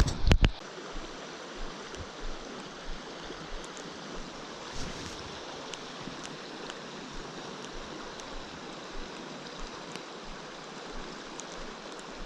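Fast-flowing stream water rushing steadily, with a few sharp knocks right at the start and faint scattered ticks.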